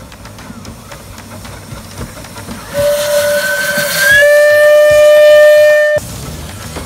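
A small tank steam locomotive's whistle blows close by as it passes beneath. It starts breathy with a rush of steam, settles into a loud steady note for about two seconds, then cuts off sharply. Before the whistle there is a low rumble of the locomotive running on the track.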